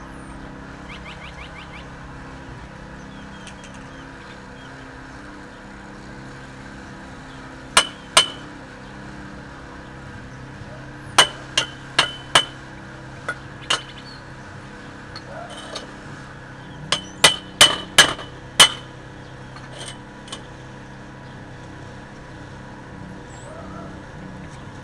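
Welder's chipping hammer striking a fresh stick (SMAW) weld on a steel bar to knock off the slag. About a dozen sharp metallic clinks, each ringing briefly, come in short bursts of two to five strikes.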